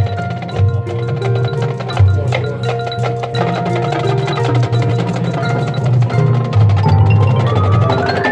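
High school band music: fast percussion strikes over held pitched notes, with a rising run of notes near the end that cuts off sharply.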